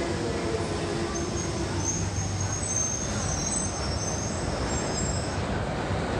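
London Underground Central Line 1992 Stock train coming to a stop at a station platform: a steady rumble under a low whine that fades out about two seconds in, with thin high brake squeals through the middle of the stop.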